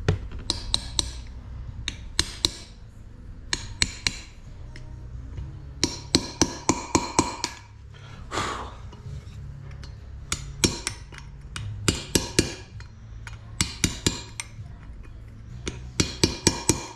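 Ball-pein hammer tapping a steel punch to drive a metal-stitching lock into a slot across the crack in an old side-valve Ford cast iron cylinder head. The taps come in quick bursts of several light strikes, each ringing briefly.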